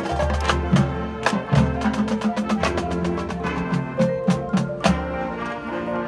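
Marching band playing: brass and wind chords over heavy bass notes, with frequent sharp percussion hits.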